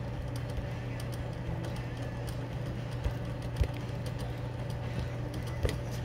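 Smith Corona Electra 120 electric typewriter's motor running with a steady low hum, switched on and idling. A few faint clicks come about three seconds in and again near the end.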